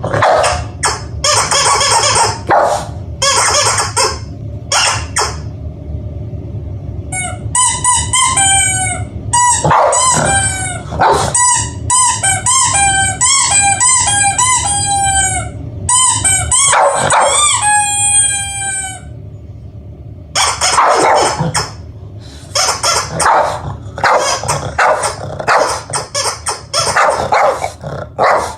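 Rapid squeaky chirps from a squeaky bird, each sliding down in pitch, repeating for about twelve seconds in the middle. Before and after them come stretches of short, rough noise bursts from the Boston terrier.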